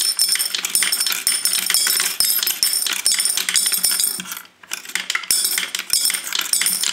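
Pennies clinking and rattling in quick succession as they are fed one after another through a small Ryedale penny sorter and drop into glass canning jars below, with a short pause about four and a half seconds in.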